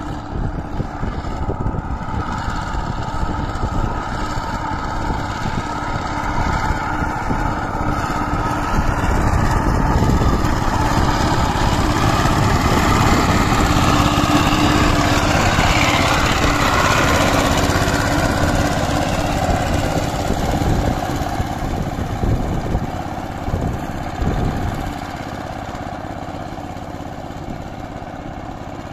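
Diesel engine of a Syfeng 25 two-wheel power tiller running steadily under load as its 24 blades churn wet paddy mud. It grows louder as the tiller comes close about halfway through, then fades as it moves away.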